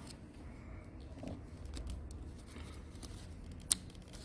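Faint handling noises as a scooter's fuel injector connector is worked loose by pulling out its retaining pin, with one sharp click near the end.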